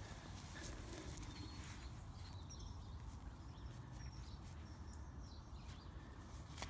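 Faint outdoor ambience: a low steady rumble with a few soft clicks.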